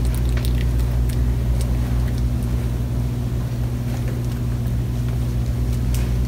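Steady low hum of room background noise, with a few faint clicks.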